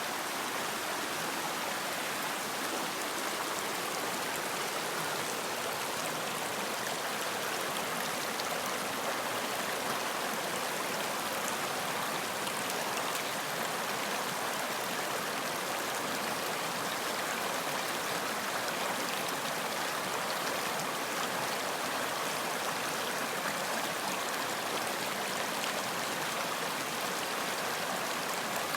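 Running water of a stream: a steady, even rushing and splashing that does not change.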